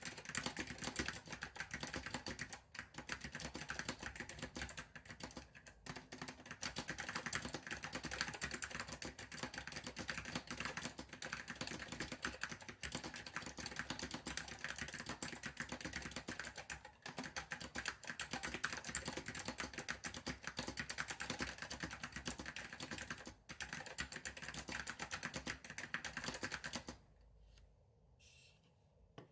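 Apple M0116 (Apple Standard Keyboard) with Alps SKCM Salmon tactile switches being typed on quickly: a dense, continuous stream of keystroke clicks. The typing stops near the end.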